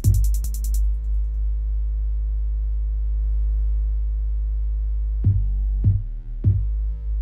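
Electronic background music: a steady synthesizer drone with a deep drum beat that hits once at the start, drops out, and comes back near the end at about one beat every 0.6 seconds.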